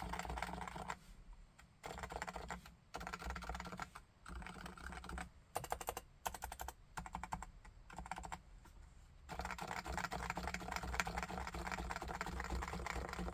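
Typing on a Topre Realforce R2TLSA silent keyboard with 45 g silent electrostatic capacitive switches: short runs of quick keystrokes broken by brief pauses, slower separate presses near the middle, then a longer unbroken run from about two-thirds in.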